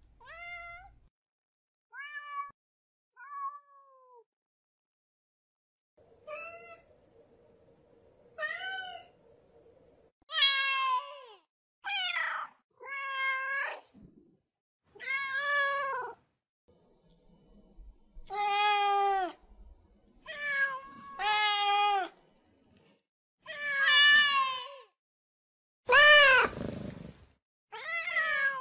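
Domestic cats meowing: a long series of separate meows, short and faint at first, then louder and longer from about a third of the way in. One harsh, raspy call comes near the end.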